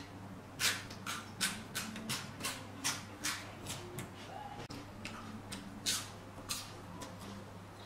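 Close-up mouth sounds of a person chewing a spoonful of soft chopped raw fish paste: wet smacking clicks at about two to three a second, stopping near the end.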